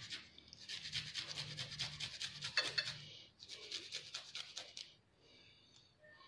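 Garlic cloves being grated on a small handheld metal grater: a fast rasping of quick strokes, about eight a second, in two runs with a short break about three seconds in. The rasping stops about five seconds in.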